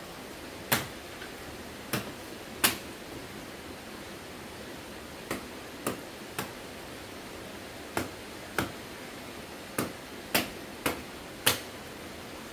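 About a dozen sharp knocks, irregularly spaced and partly in quick clusters, as a hand tool strikes the rocky ground, over a steady background hiss.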